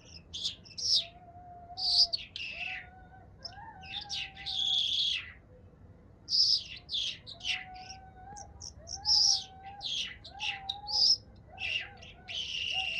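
A songbird singing a run of quick chirps and trilled phrases, high-pitched and broken by short pauses, with a fainter, lower wavering whistle beneath.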